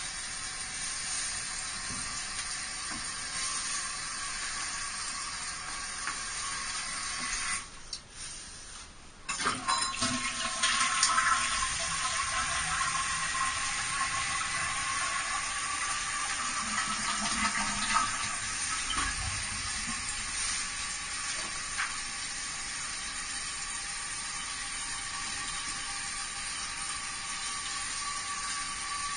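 Water running steadily, which drops out briefly about eight seconds in. When it comes back it is louder for a couple of seconds, then settles into a steady rush with a faint thin whistle over it.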